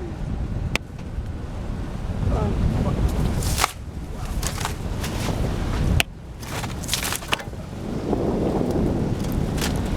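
A vehicle driving slowly over a rough, rutted dirt trail: a steady low rumble with wind buffeting the microphone and a few sharp knocks and rattles as it jolts over bumps.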